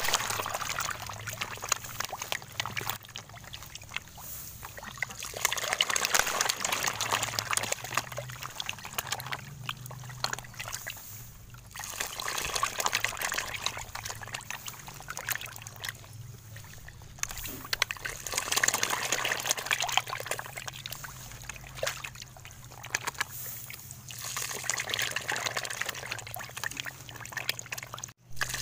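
Water splashing and sloshing in a fish bucket as fish churn the surface, swelling and easing every few seconds.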